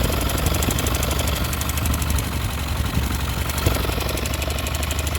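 Yamaha YB motorcycle engine idling steadily with a fast, even knocking: the engine noise the owner is concerned about.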